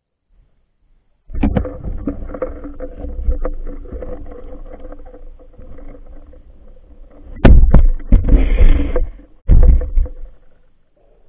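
Underwater recording: muffled knocking, rubbing and rumbling as hands handle the phone and spear gear close to it, starting about a second in, with the loudest thumps about seven and a half and nine and a half seconds in.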